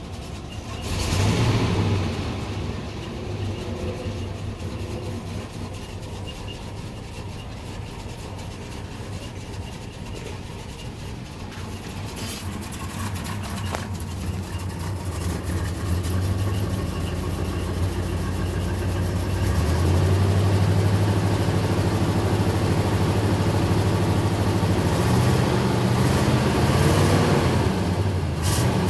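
1975 Chevrolet C10's factory 350 small-block V8 running at idle, with a brief rev about a second in. It runs louder in the second half, with a couple of revs near the end.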